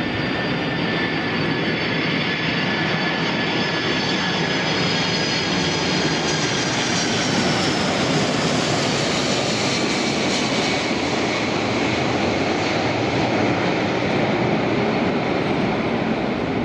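Boeing 747-400's four jet engines at approach power as the airliner passes low and close on final approach: a steady jet noise with whining tones that fall in pitch about halfway through as it goes by.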